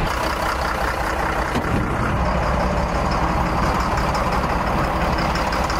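Caterpillar marine diesel engine running steadily, heard close through the open engine hatch, a dense low rumble with a faint fast ticking over it.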